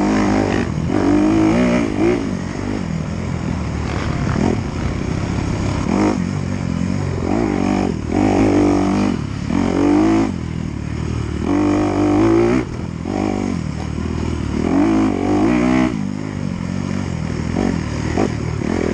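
Off-road dirt bike engine revving up and dropping back over and over as the rider works the throttle through the gears.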